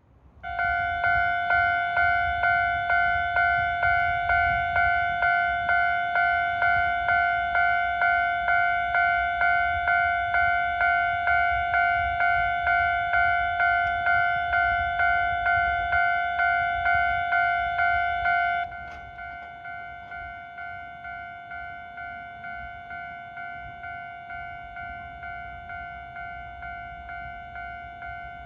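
Japanese railway level crossing alarm starting up and ringing its repeated 'kan-kan' bell tone, about one and a half strikes a second, warning that a train is coming. About 19 seconds in it drops suddenly to a quieter level and keeps ringing at the same pace.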